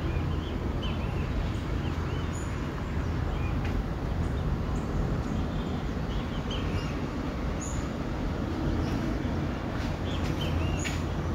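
Steady low rumble of outdoor city ambience, with small birds chirping briefly again and again over it.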